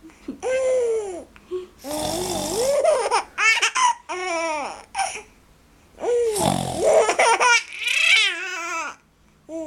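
A little girl laughing hard in repeated high giggles and shrieks, set off by an adult's fake snoring. Low, rough snore noises come about 2 s and 6.5 s in, and she laughs after each one.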